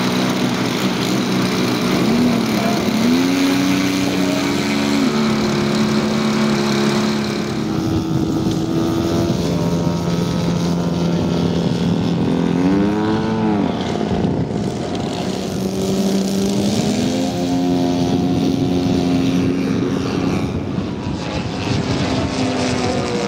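Engines of large-scale radio-controlled WW2 fighter models running, their propeller drone steady for stretches, then climbing and falling in pitch several times as throttle changes and the models fly past, with a quick rise and fall about halfway through.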